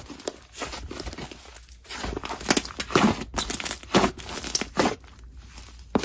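Slime mixed with clay being kneaded and stretched by hand, giving irregular crackling, crinkling and squishing sounds that thin out near the end.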